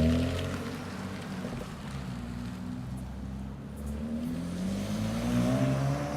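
Engine and exhaust of a BMW N54 car fitted with aftermarket downpipes. The engine note drops just after the start as it comes off the throttle, then climbs again in pitch as it accelerates near the end.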